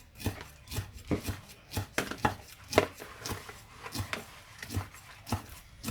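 Knife chopping on a cutting board, sharp strokes about twice a second, the pace a little uneven.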